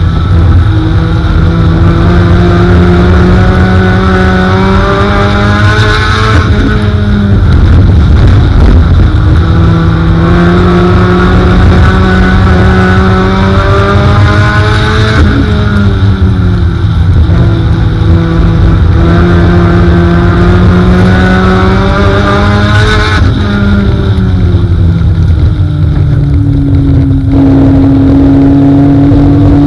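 Four-cylinder dirt-track race car engine heard loud from inside the cockpit, climbing in pitch for several seconds and then dropping as the driver lifts, about every eight seconds, once per straight and turn. Near the end it settles to a steady pitch.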